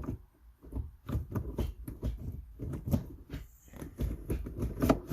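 Manual gear shifter being rocked and pushed across the gate, a quick irregular run of clicks and clunks with a louder knock near the end. The lever is loose and lacks its spring return, which the owner puts down to a faulty shifter spring.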